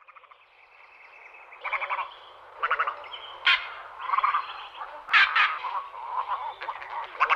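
Harsh, croaking animal calls in short rattling bursts, coming about once a second over a steady hiss, fading in at the start.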